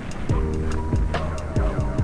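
Background music with a steady beat: deep thumping kick drums about twice a second under held chord tones and light ticking cymbals.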